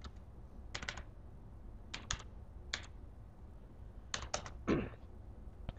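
Computer keyboard being typed on in short, sparse groups of two or three keystrokes, with pauses of about a second between groups.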